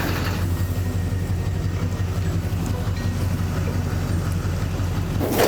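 Pickup truck engine running steadily at low speed, towing a loaded gooseneck trailer, with a low even hum. Right at the end a louder noisy rush sets in.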